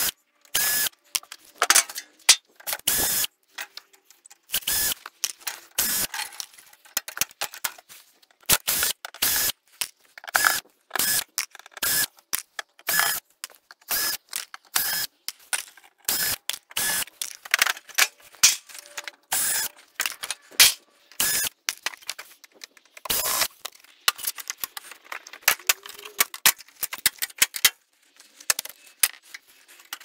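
Screws being undone from the sheet-metal casing of a split-system air conditioner's outdoor unit. The tool gives short bursts of rapid mechanical clicking, dozens of times, with brief gaps between.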